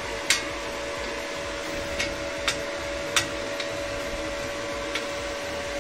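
A tack-welded steel motorcycle centre stand being swung on its pivot, giving about six light, irregular metal clicks and knocks. A steady hum runs underneath.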